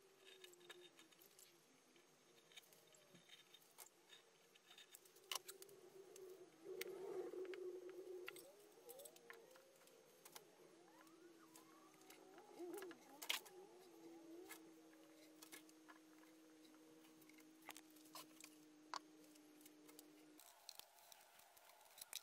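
Near silence with faint workshop handling sounds: scattered light clicks and taps of 3D-printed plastic enclosure parts being worked with a spatula and spreader, with some faint scraping in the middle. A faint low hum stops about two seconds before the end.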